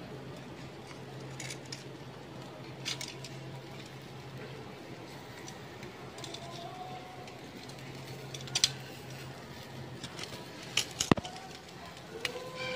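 Metal tongs clicking against a wire grill grate while tuna jaws are handled over charcoal. There are a handful of sharp clicks, with a small cluster near the end, over a steady low hum.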